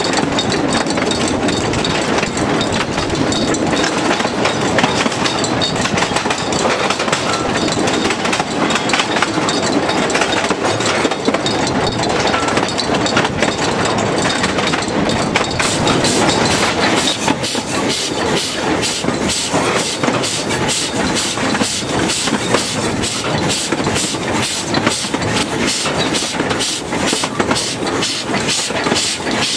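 Steady running noise of a narrow-gauge train hauled by a TU2 diesel locomotive, with wheels clattering over the rails. The clatter turns more even and rhythmic about halfway through.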